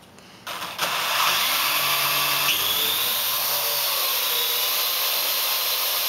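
Parrot AR.Drone quadcopter's four electric motors and propellers starting up about a second in, then running with a steady, high whir as the drone lifts off and hovers.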